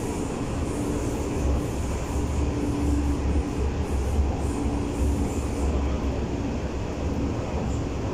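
Berlin U-Bahn class H train heard from inside the car while running: a steady low rumble of wheels and running gear, heavier through the middle few seconds, with a faint humming tone that comes and goes.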